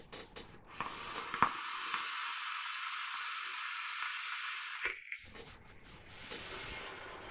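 A long draw on a dual-coil rebuildable dripping atomizer (MSM Tech Phoebe RDA) with its side and bottom airflow half open: a steady hiss of air and firing coils for about four seconds, which stops abruptly, then a softer, fading hiss as the vapour is exhaled. At this airflow setting the draw is still a little turbulent.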